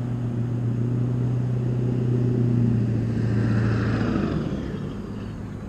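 A motor vehicle's engine hum, steady at first, swelling with a rush of noise about three and a half seconds in and then fading away.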